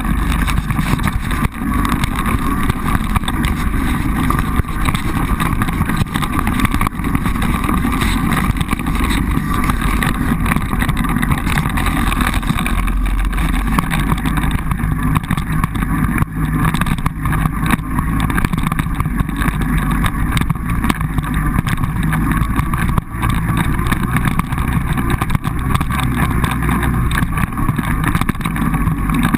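Quad bike engine running steadily while being ridden over rough pasture, with a few brief knocks from the bumpy track.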